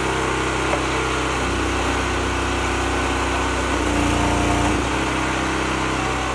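Small gasoline engine running steadily, driving the hydraulic pump of a homemade log splitter. Its note shifts slightly a couple of times as the splitter's valve is worked.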